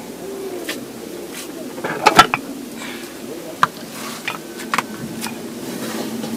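Scattered light knocks and clicks over a low murmur of voices, the loudest knock about two seconds in.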